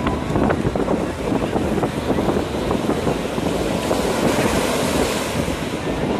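Sea surf breaking and washing up a sandy beach, with wind buffeting the microphone. About four seconds in, a wave breaks and its foam runs up the sand with a louder hiss.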